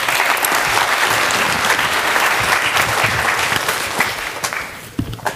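Audience applauding at the end of a lecture, fading out near the end.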